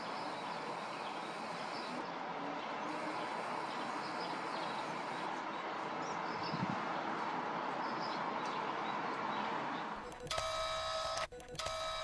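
Steady outdoor city background noise with a few faint bird chirps. About ten seconds in it gives way to an electronic logo sound effect: two steady beeping tones over rapid ticking, broken off briefly once.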